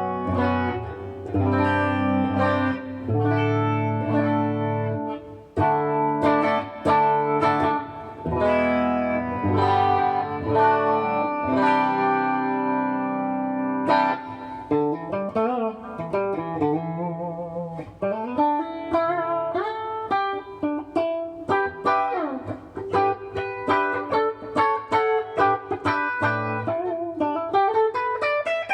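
Electric guitar with Kiesel Polarity active pickups, bridge pickup in split mode, played clean through a Boss Katana amp with chorus, reverb and delay. About the first half is ringing chords. After that come single-note lines with string bends and vibrato.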